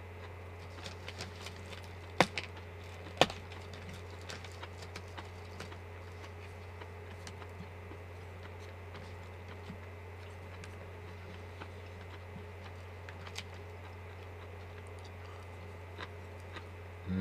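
A few light clicks of wooden disposable chopsticks against a plastic food tray, two sharper taps about two and three seconds in, over a steady low hum.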